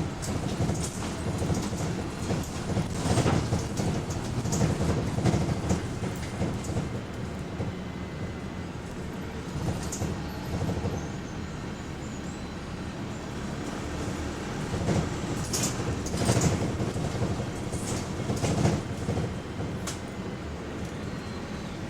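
Inside a moving bus, Go-Ahead London WS104: the engine runs under the floor while the bodywork and fittings rattle and knock over the road, with louder stretches of rattling now and then.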